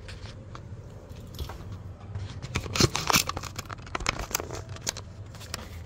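Irregular clicks, taps and rustling of objects being handled, busiest in the middle, over a steady low hum.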